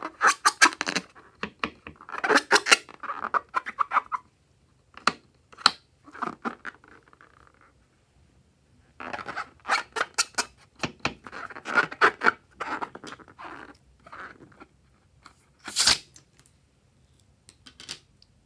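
A slime-filled rubber water balloon being handled, the rubber squeaking and rustling in short bursts. It is then cut or torn open with one loud, sharp sound about sixteen seconds in.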